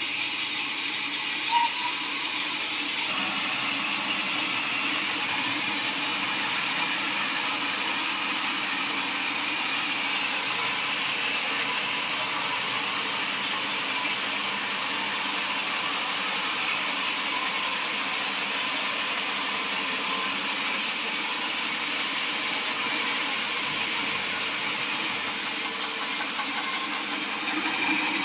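Sawmill saw running steadily, a constant even mechanical noise, with one short knock about a second and a half in.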